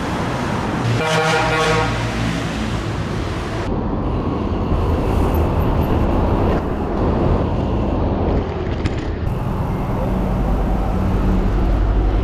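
A vehicle horn sounds once for about a second, over road traffic noise. After that comes a steady low rumble of wind and road noise while a bicycle rides along.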